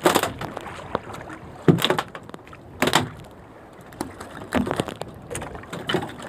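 A run of sharp knocks and thumps against the boat, the loudest three in the first three seconds and lighter ones after. They come from a freshly hooked scabbard fish thrashing on the handline as it is hauled up against the hull.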